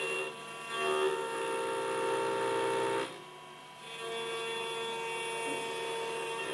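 Mini CNC router's 800 W spindle running while its end mill cuts a round aluminium workpiece held in the rotary fourth-axis chuck, a steady machine sound made of several held tones. The cutting sound drops away for just under a second a little before halfway through, then comes back.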